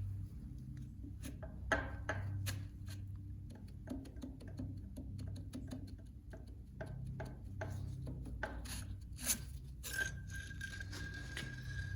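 Hand tools working on a vintage tractor engine: scattered metal clinks, taps and scraping over a steady low hum, with a steady high tone in the last two seconds.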